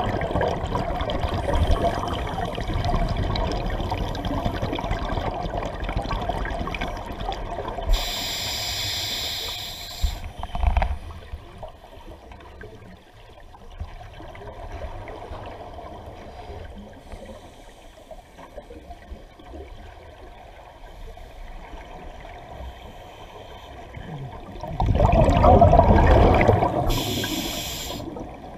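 Scuba breathing through a regulator underwater: rumbling, gurgling exhaust bubbles and hissing inhalations. The loudest rush of bubbles comes near the end, followed by a hiss.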